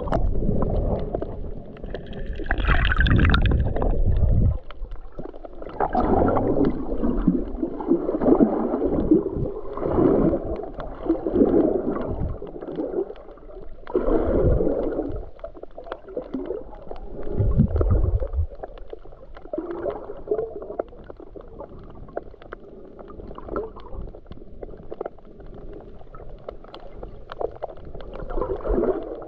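Gurgling and sloshing of water heard with the GoPro submerged, muffled and rumbling, swelling and fading in irregular surges every few seconds, loudest in the first half.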